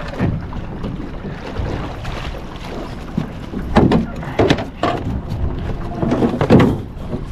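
Wind rumbling on the microphone in a small fishing boat. In the second half comes a cluster of sharp, loud noises: the commotion of a big fish being brought to the net beside the boat.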